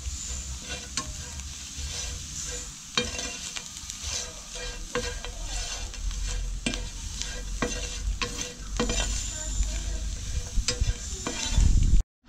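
Plastic spatula stirring and scraping whole crickets around a hot, salted frying pan as they roast, a sharp scrape or tap every second or two over a steady frying hiss.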